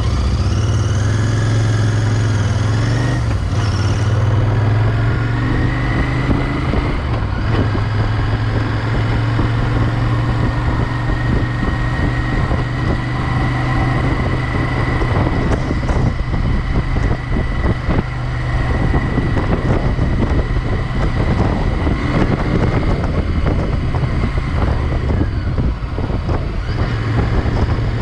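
Royal Enfield Interceptor 650's parallel-twin engine pulling away from a stop and rising in pitch through the first few gears, then running steadily at road speed.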